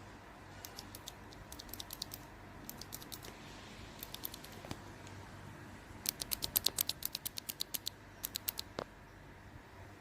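Outemu Brown tactile mechanical keyboard switch being pressed repeatedly, giving runs of light clicks. The fastest and loudest run comes about six seconds in.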